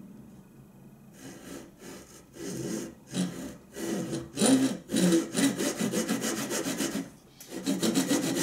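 Wood handsaw cutting a shallow starting kerf across a square wooden rail, its blade guided in the slot of a wooden miter box. Short back-and-forth rasping strokes begin about a second in, get louder about three seconds in, stop briefly near the end, then go on.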